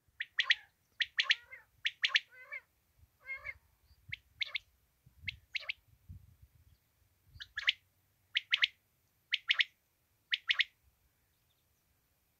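Quail (batair) calling, used as a lure for quail hunting: short, sharp phrases of two or three quick notes, repeated about once a second, stopping near the end.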